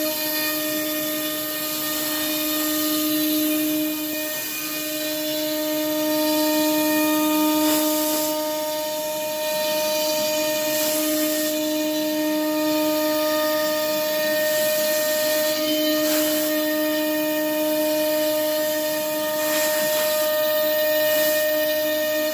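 CNC router spindle whining steadily at one pitch as its cutter contours through hardwood form ply, the whine swelling and easing as the cut loads it, over a steady hiss from the air blast nozzle blowing chips out of the slot.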